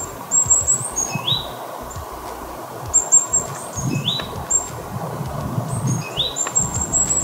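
Songbirds singing: a short rising whistle repeats every two to three seconds among runs of quick, very high chirps.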